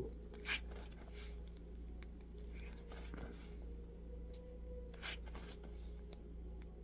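Three short, faint, high squeaks from an RC truck's rubber tyre as it is twisted and pulled on its glued plastic rim with leather gloves, over a low steady hum.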